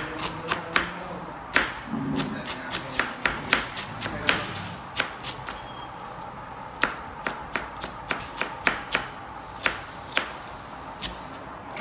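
Kitchen knife shredding cabbage on a plastic cutting board: quick sharp knocks of the blade striking the board, a few a second, with a pause of about a second around the middle.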